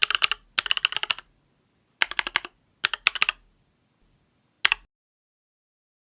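Mechanical keyboard typing in five short bursts of rapid keystrokes separated by pauses, the last a brief flurry near the end. The board is an ID80 with lubed and filmed NovelKeys Kailh Cream linear switches under tall MT3-profile keycaps.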